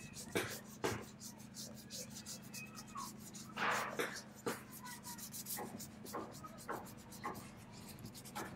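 A bristle brush scrubbed back and forth over a wooden chair back slat, making quick, repeated scratchy strokes, a few of them louder, over a steady low hum.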